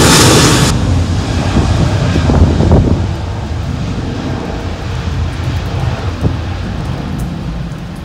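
Jet airliner's engines rumbling, the sound slowly fading, with wind buffeting the microphone. A loud hiss at the start cuts off abruptly within the first second.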